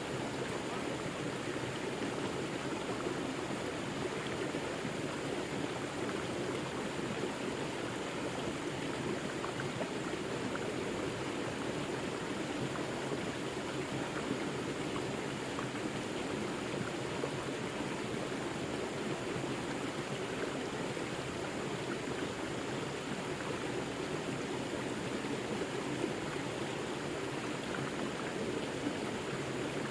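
Forest river water flowing steadily, a continuous rush of running water.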